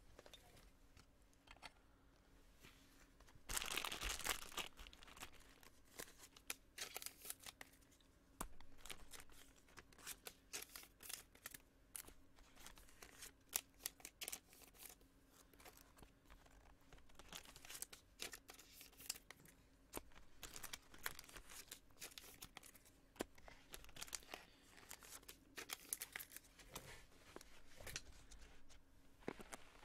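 Trading cards and their plastic and foil packaging being handled: quiet scattered crinkling and clicking, with a louder burst of crinkling and tearing about four seconds in.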